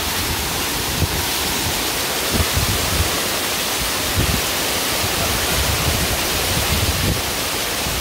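Miin Falls, a waterfall about 50 m high, plunging onto rock close by: a steady, very loud rush of water. Irregular low buffeting bumps sit under the rush.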